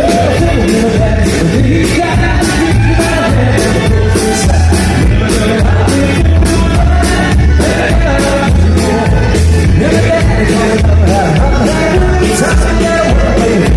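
Live band playing a song with a sung lead vocal over a steady drum beat and bass.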